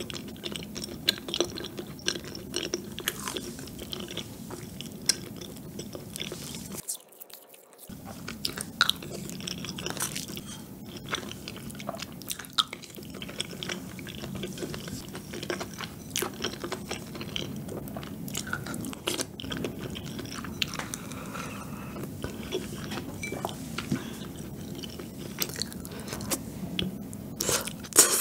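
Close-miked chewing of rosé tteokbokki, chewy rice cakes and fish cakes in a thick creamy sauce, with wet, sticky mouth clicks and smacks. There is a brief lull about seven seconds in, and louder bites near the end.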